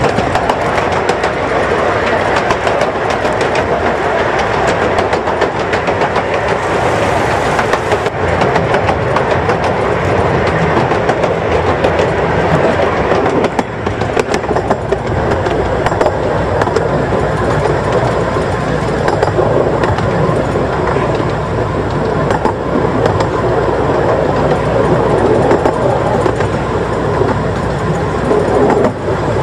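Running noise of a miniature railway train heard from on board: a steady rumble and rattle of the wheels on the track, with faint clicks throughout.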